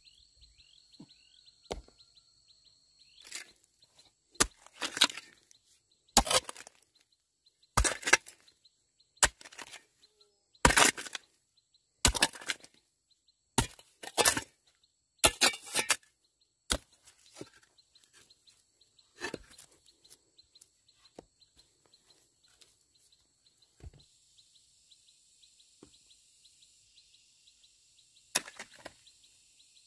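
Repeated chopping strikes on wood, a sharp blow every half second to second and a half for about fifteen seconds, then a few scattered strikes, over a faint steady high insect or bird hiss.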